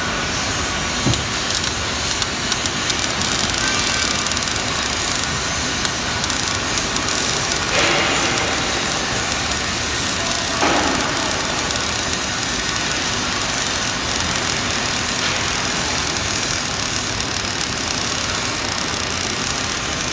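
Gas metal arc (MIG) welding arc crackling and hissing steadily, with a couple of brief louder swells around the middle.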